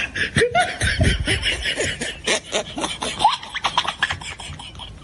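People laughing hard, with short yelping rises in pitch over a dense clatter of noise.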